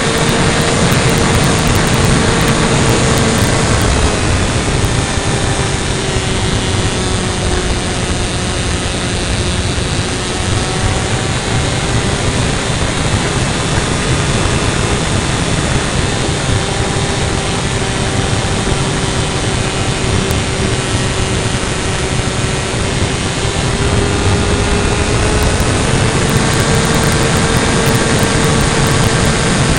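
Engine of an RC model airplane heard from a camera mounted on the plane in flight, a steady tone that drops a little in pitch around the middle and rises again near the end, under loud wind rush on the microphone.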